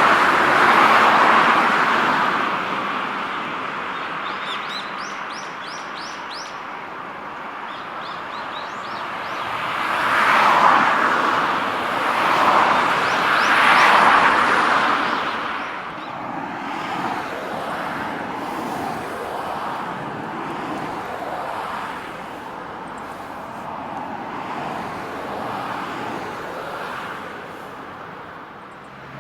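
Road traffic passing, a broad rush that swells and fades as cars go by, loudest near the start and again about ten to fourteen seconds in. Between about three and seven seconds a small bird gives a quick series of high chirps.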